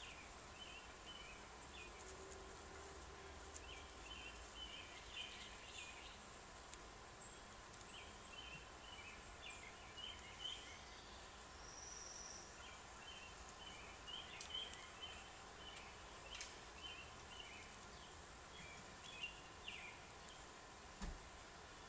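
Faint, high-pitched chirping in short rapid runs every second or two: house finch nestlings begging as the male house finch attends the nest. A soft low knock near the end.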